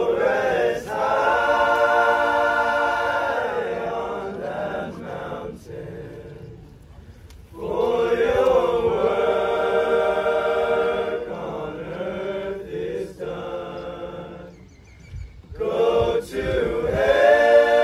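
A high-school boys' choir singing a cappella in long held chords. It sings in three phrases, with brief soft pauses between them about six and fifteen seconds in.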